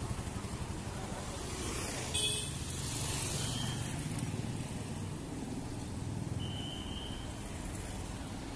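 City street traffic: a steady rumble of passing vehicles, with a brief sharp noise about two seconds in and a few short high-pitched tones.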